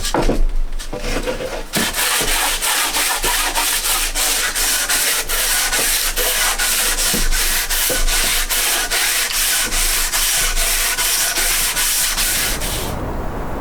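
Wood being sanded: a rhythmic rasping at about three strokes a second that starts about two seconds in and stops abruptly about a second before the end.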